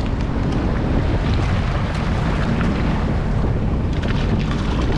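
Sea-Doo jet ski running steadily under way, its engine hum under heavy wind buffeting on the microphone.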